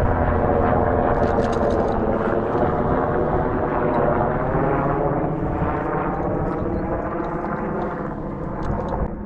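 Helicopter flying low overhead, its rotor and engine loud and steady, fading over the last few seconds as it moves off.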